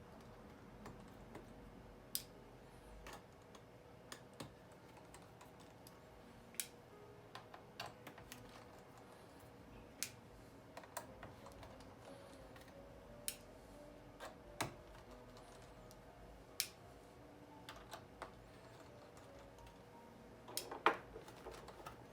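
Irregular small sharp clicks and taps, about one every second or two, as a small screwdriver takes tiny pentalobe screws out of a MacBook Pro's aluminium back panel and sets tools and screws down. The loudest cluster of clicks comes near the end.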